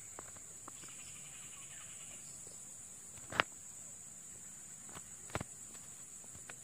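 Steady high-pitched insect drone, with a few sharp clicks, the loudest about three and a half seconds in.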